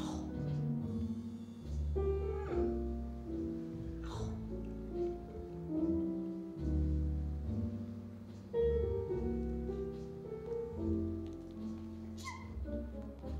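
Jazz piano music, chords and melody notes over a low bass line.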